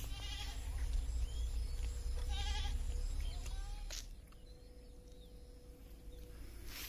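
A goat bleating twice, two short quavering calls about two seconds apart. A sharp click follows about four seconds in.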